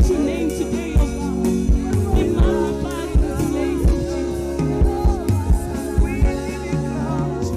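Gospel worship song performed by singers with a band: voices over a steady bass line and a regular drum beat.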